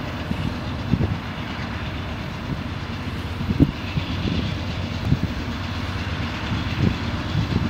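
Union Pacific GE C44AC-CTE diesel locomotives working under load as they lead a heavy train of center-flow hoppers. A steady low engine rumble with a few sharp low thumps.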